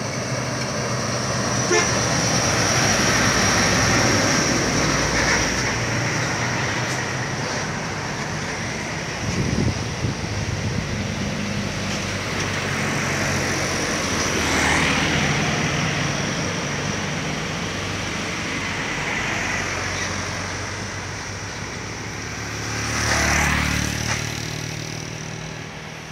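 Heavily loaded sugarcane trucks driving past one after another, their diesel engines pulling hard. The engine noise swells three times as trucks pass close, about three seconds in, near the middle, and near the end.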